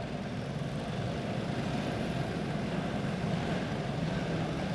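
A pack of dirt-track karts with box-stock Predator single-cylinder engines running together at pace speed ahead of a restart, a steady wavering drone that builds slightly near the end.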